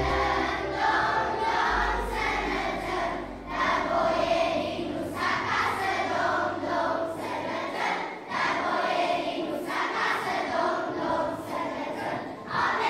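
Choir of schoolchildren and teenagers singing a Romanian folk song together, in phrases separated by short breaks.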